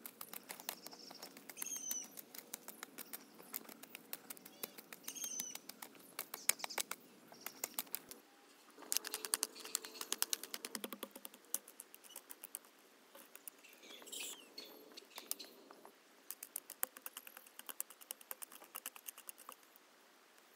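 Hand hoe scraping and chopping through stony garden soil, a quick gritty crackle of small clicks coming in bursts as the blade is dragged and struck again and again. A bird chirps now and then.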